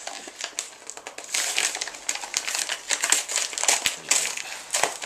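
Padded jiffy bag mailer being opened and handled: crinkling, crumpling rustles in quick irregular bursts.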